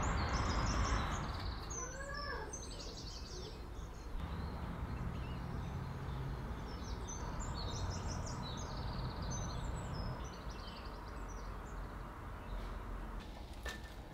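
Small birds singing and chirping in short high phrases, in two spells, over a steady low outdoor background noise.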